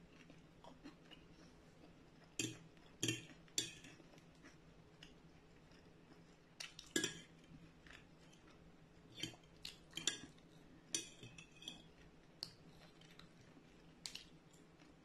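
Metal fork clinking and scraping against a ceramic plate as pieces of fried tofu are picked up, in scattered sharp clicks with gaps between.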